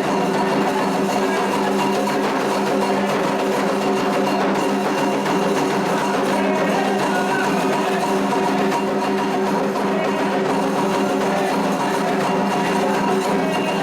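Candomblé ceremonial music: drums and struck percussion playing a dense, even rhythm that carries on without a break.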